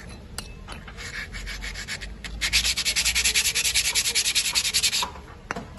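Brake pad scraped rapidly back and forth on a concrete floor to scuff its friction surface: a quick run of gritty rubbing strokes, light at first, then loud and fast from about two and a half seconds in until they stop about five seconds in.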